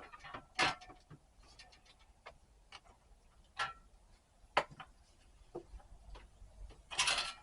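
Scattered light clicks and knocks of heater parts and hand tools being handled during disassembly, with a longer rattle near the end.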